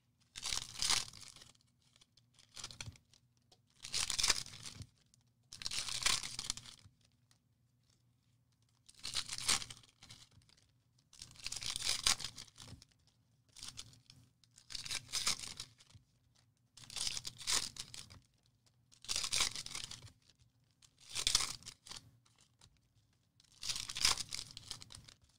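Wrappers of 2021 Panini Elite football card packs being torn open one after another, a short ripping burst roughly every two seconds, about a dozen in all.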